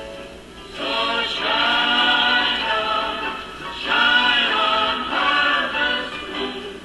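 Recorded music with singing playing from a vinyl record on a vintage Symphonic record player, heard through its mono amplifier and speaker; the singing comes in about a second in. The playback sounds a little slow to the owner, who suspects the turntable is running slightly under speed.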